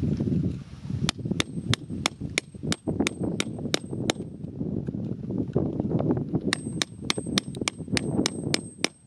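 A hand digging tool chipping into wet, stony ground around a crystal. Sharp, regular taps come about three a second in two runs, with a faint high ringing note held under each run and a rough scraping of gravel underneath.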